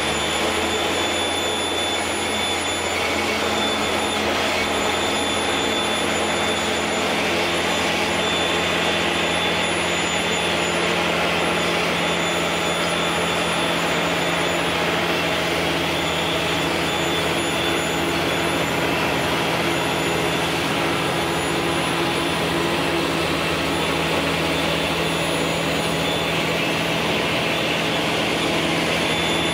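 Fendt Favorit tractor's diesel engine running steadily under load as it drives over and compacts chopped grass on a silage clamp, with a Krone loader wagon unloading grass behind it.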